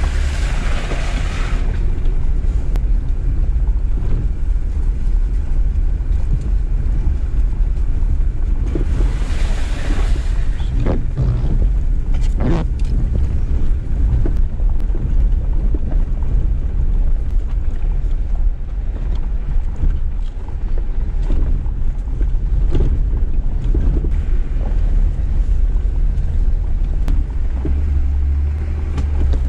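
Jeep Gladiator Rubicon driving slowly over a rough dirt trail: a steady low engine and drivetrain drone, scattered knocks and clunks from the tyres and suspension on the uneven ground, and two brief hissing washes, one at the start and one about nine seconds in.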